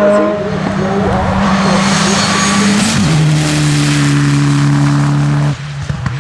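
Race car engine running hard at high revs, its pitch dropping suddenly about three seconds in and then holding steady before the sound falls away near the end.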